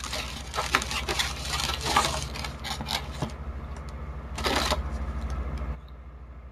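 Paper packing wrap being torn and crinkled open by hand, a dense run of crackles and rustles, with a louder rustle about four and a half seconds in.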